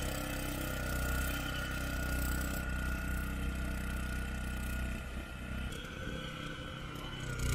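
Small engine of a walk-behind power tiller running steadily as it works the soil.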